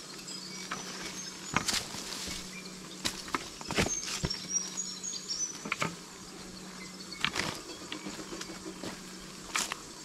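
Irregular footsteps crunching over loose rocks and dry leaf litter in a dry creek bed, a few steps louder than the rest. Faint high insect chirps sound in the background.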